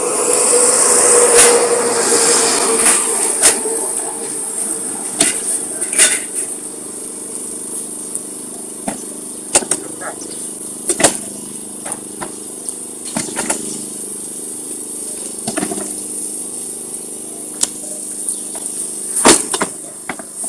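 Concrete paving blocks clacking against each other in irregular sharp knocks, about one every second or two, as they are handled and laid by a paver-laying machine, over a steady mechanical hum. A louder noisy stretch fills the first two to three seconds.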